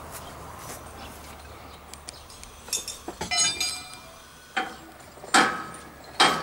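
Metal clinks, then loud hammer blows on steel about a second apart, each ringing briefly.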